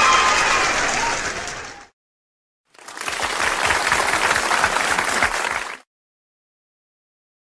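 Two stock crowd sound effects. The first is a burst of crowd cheering and applause with voices rising over the clapping, fading out about two seconds in. After a short silence comes about three seconds of steady applause that stops abruptly.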